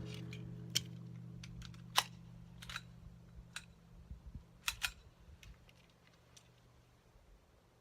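Light handling clicks and clacks from a Colt 1911 .22 LR pistol: about half a dozen sharp clicks spread over five seconds, two of them in quick succession near the end. A low hum dies away in the first second and a half.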